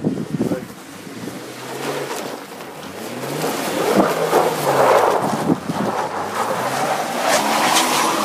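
Jeep SUV's engine revving up and down as it spins donuts on snow, over a broad rushing noise that swells and is loudest about midway and again near the end.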